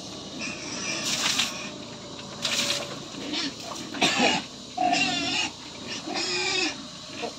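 Domestic pigs squealing in a pen: about five short, shrill squeals spread over several seconds with brief pauses between them.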